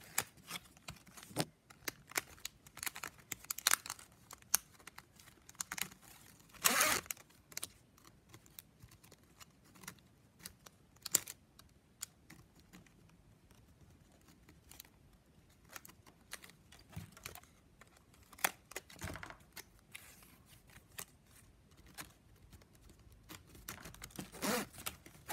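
Plastic strapping band being threaded and pulled through a woven strap piece: scattered crinkling, scraping and clicking of plastic strip on plastic strip, with a few louder rustles.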